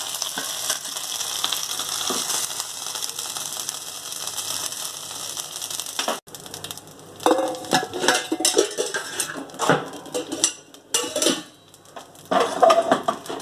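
Hot oil sizzling steadily in a frying pan as fried chicken leg pieces are lifted out. After an abrupt break about six seconds in, irregular clinks and clatter of utensils and dishes.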